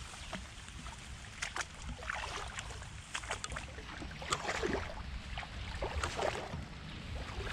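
Feet wading through shallow floodwater among grass: irregular sloshing and splashing steps.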